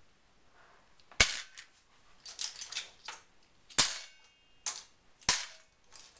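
Loose plastic keyboard keycaps being handled on a hard surface: a series of separate sharp clicks and knocks, the three loudest about a second in, near four seconds and past five seconds, with lighter clicks between.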